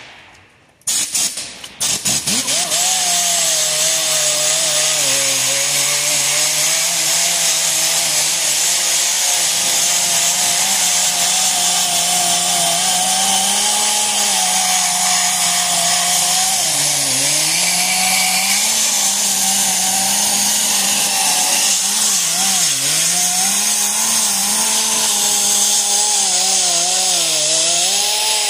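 Rotary sander with a 36-grit hook-and-loop disc stripping rust and paint from a steel truck bumper. It blips on and off about a second in, then runs steadily with a hum and a grinding hiss. Its pitch sags a few times near the end as the disc is pressed harder into the metal.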